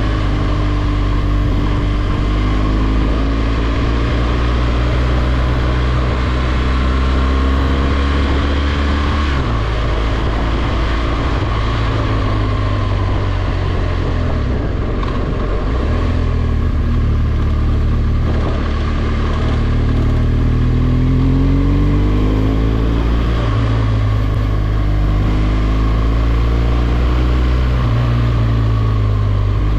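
BMW R1200GS boxer-twin motorcycle engine under way, its pitch rising and falling as the throttle is rolled on and off and gears are changed, with clear drops in the engine note about ten seconds in and again around sixteen seconds.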